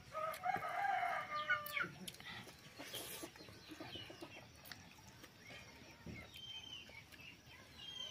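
A rooster crowing once near the start, a call of about a second and a half, followed by short high bird chirps now and then.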